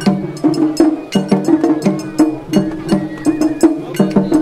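Matsuri-bayashi festival music: a quick, busy pattern of sharp strikes on tightly tuned drums, with a thin high held tone now and then.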